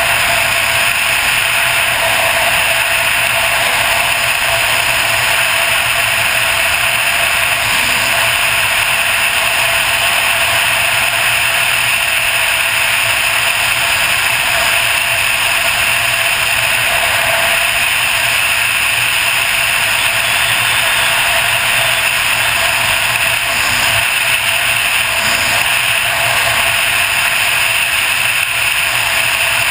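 Suzuki DR800's big single-cylinder engine running steadily at cruising speed, mixed with a constant rush of wind and road noise on the microphone.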